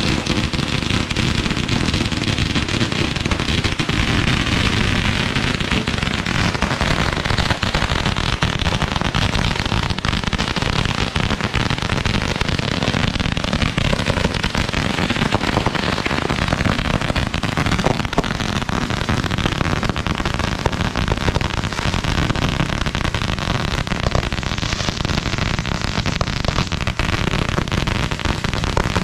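Fireworks going off nonstop: a dense, unbroken crackle of many small bangs and pops.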